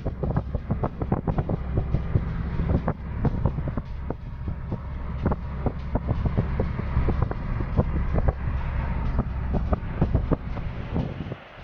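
Strong typhoon wind buffeting the microphone in a heavy low rumble with many sharp crackling gusts, over the noise of storm surf.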